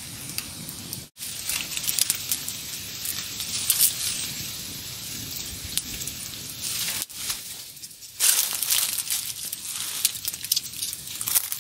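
Small stick campfire crackling, with dry twigs and leaves rustling and snapping as sticks are pushed into the flames. The sound breaks off briefly twice, about a second in and near seven seconds.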